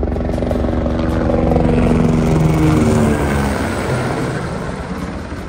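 Helicopter passing low overhead, its rotor beating with an engine whine. It grows louder, the pitch drops as it goes by about three seconds in, and then it fades away.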